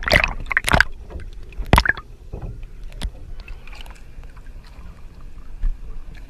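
Water splashing and sloshing around a camera held half in the sea at the surface. There are sharp splashes in the first second and again about two seconds in, then quieter lapping.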